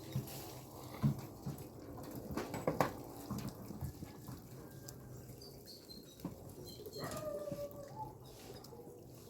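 A dog whining, with a few sharp knocks in the first few seconds.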